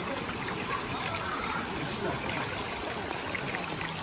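Mountain stream water trickling and flowing over rocks, a steady rushing hiss.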